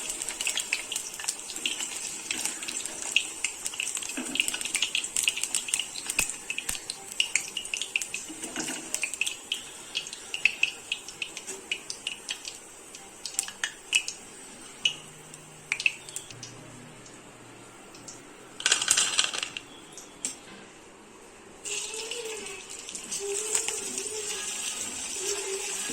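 Chicken pakodi pieces deep-frying in hot oil: a steady sizzle with many small pops and crackles. There is a louder burst of sizzling about two thirds of the way in, then a short quieter spell before the sizzle picks up again.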